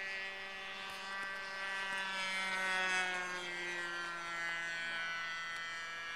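Radio-controlled model airplane's engine and propeller droning overhead with a steady buzzing pitch. It grows loudest about three seconds in, then the pitch sags slightly as the plane passes and moves off.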